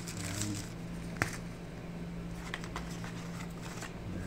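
Handling noises of a phone unboxing: soft rustling of paper inserts and a rubbery phone case in gloved hands, with small clicks and one sharp click about a second in, over a steady low hum.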